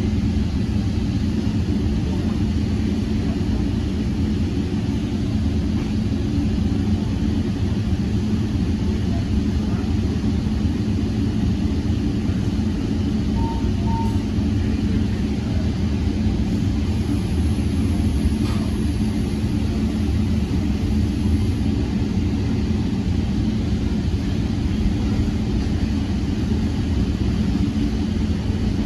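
Steady running noise of a Tri-Rail commuter train heard from inside a passenger coach rolling along at speed: a constant low rumble from the wheels and rails with a steady hum.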